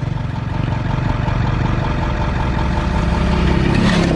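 Van engine and road noise heard from inside the cab while driving on a dirt road, a steady low drone.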